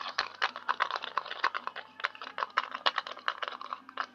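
A spoon stirring a thick shampoo and dish-soap slime mixture in a container, clicking and scraping against the container several times a second in a rapid, irregular patter. The mixture is starting to thicken into slime.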